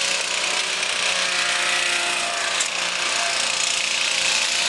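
Roof cutter running and cutting through old roofing during a tear-off: a steady engine drone under a continuous grinding noise.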